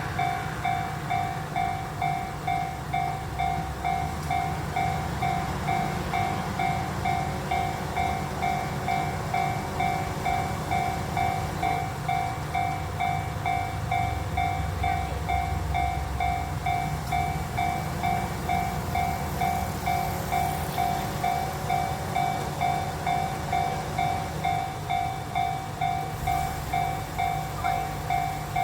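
Japanese railroad crossing's electronic warning bell ringing steadily, a little under two dings a second. Under it, a train's low rumble swells about halfway through and fades again.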